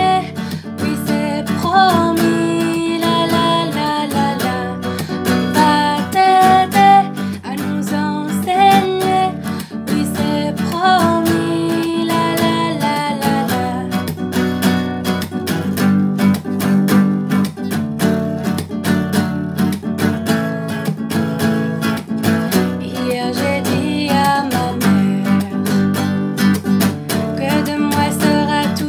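Song music: strummed acoustic guitar accompaniment with a melody line above it.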